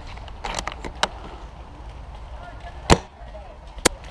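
Airsoft guns firing: sharp single cracks, the loudest about three seconds in and again just before the end, with a quick run of softer ones in the first second. Faint voices sound behind them.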